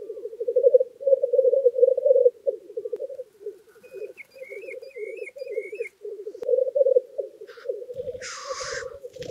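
Male black grouse bubbling (rookooing): a continuous, pulsing low cooing from the lekking cocks. Near the end one cock gives a loud hissing 'sneeze' call lasting under a second, and another bird calls faintly in the middle.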